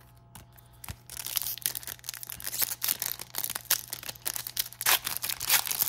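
Foil wrapper of a trading-card pack crinkling and tearing as it is pulled open by hand, a dense irregular crackle starting about a second in, after a single light knock.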